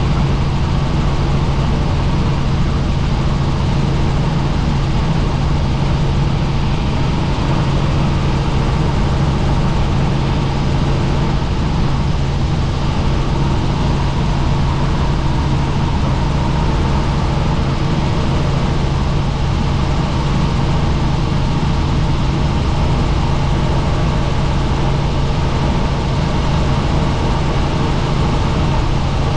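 Helicopter in flight: a loud, steady drone of engine and rotors with a strong low hum that does not change.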